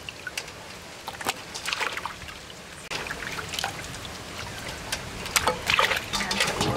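Wet splashing and dribbling of water as slippery cleaned eels are handled in steel bowls, with many scattered small wet clicks and knocks. The sound changes abruptly about three seconds in.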